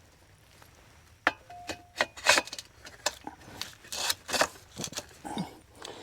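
Small metal ground stakes and feeder parts being handled: irregular clinks and knocks, with one short metallic ring about a second and a half in.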